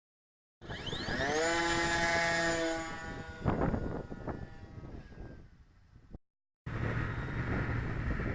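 Twin brushless electric motors with propellers spinning up with a rising whine, holding steady for about two seconds, then winding down, with a few knocks. After a brief break, steady wind rushing over the microphone.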